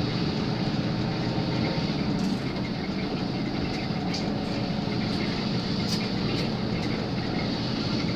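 Steady engine and road noise heard inside the cabin of an intercity bus on the move, with a few faint ticks and rattles in the middle.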